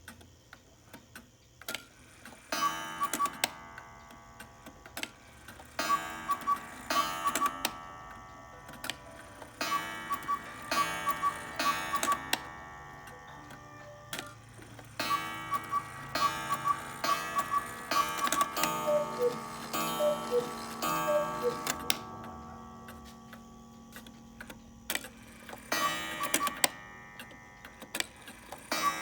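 Antique Black Forest quail cuckoo clock ticking steadily. Its calls sound in repeated bursts of pitched tones, each a second or two long, starting a couple of seconds in and going quiet near the end.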